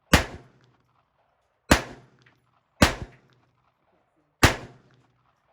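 Ruger 10/22 semi-automatic .22 LR rifle firing four single shots, spaced about a second to a second and a half apart, each with a short ringing echo.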